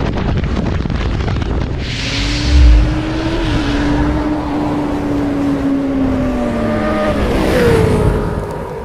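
Racing engine sound effect: a steady high engine note that slowly sinks in pitch, with a heavy boom about two and a half seconds in, then sweeps down sharply near the end.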